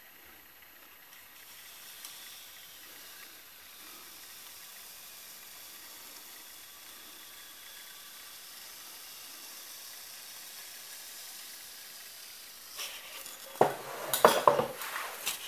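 Low-voltage hot resistance wire melting its way through blue foam board with a faint, steady sizzle. About two seconds before the end come a few loud knocks and rustles of the foam and wooden frame being handled.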